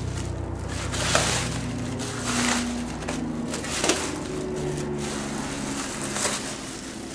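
Plastic bag wrap crinkling and rustling as it is pulled off a flat-screen TV panel, with a few sharper crackles.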